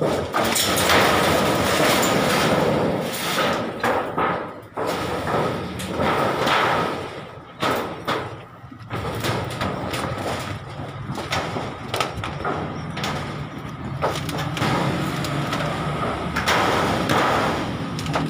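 Irregular knocks, scrapes and rattles of roofing work on the job site.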